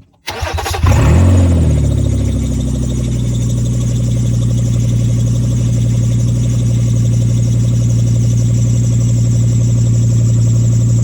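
Nissan Maxima's 3.5-litre V6 cranking briefly, catching with a short rev flare, then settling into a steady idle. This is the first start after a power steering pump replacement and fluid refill.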